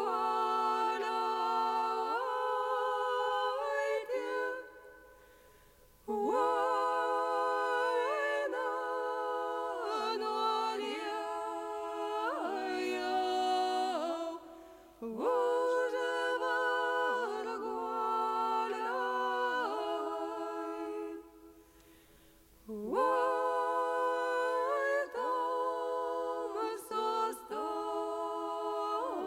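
Unaccompanied voices singing a slow Lithuanian folk song in held, stepping notes. The singing comes in phrases a few seconds long, with short breaks between them.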